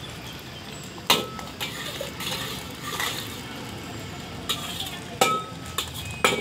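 Metal spatula clanking and scraping against a large iron karahi while eggs fry in it, over a steady sizzle. Several sharp clanks, the loudest about a second in, some of them ringing briefly.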